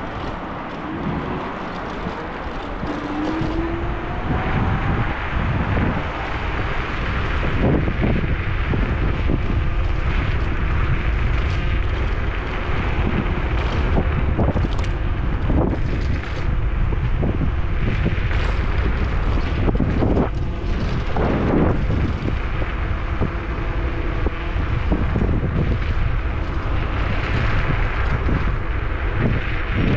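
Wind buffeting the microphone over steady road rumble while riding an electric scooter, with occasional short thumps.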